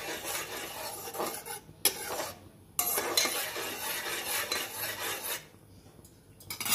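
Metal spoon stirring tomato purée in a pressure cooker, scraping against the pot in two stretches with a sharp clink about two seconds in; the stirring stops a little over five seconds in.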